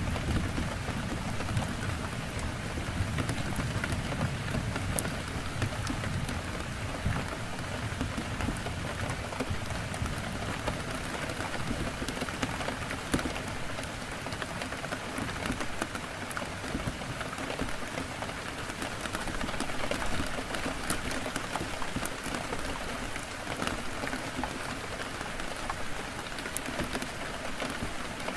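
Heavy rain on a window: a steady hiss of rain with scattered sharp drop clicks. A low rumble dies away over the first several seconds.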